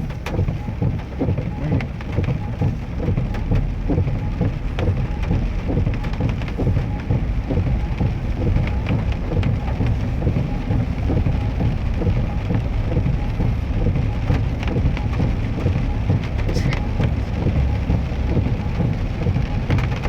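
Lifted 4x4 Chevy pickup driving into water flowing across the road: a steady rush and splashing of water around the truck over a low, continuous rumble.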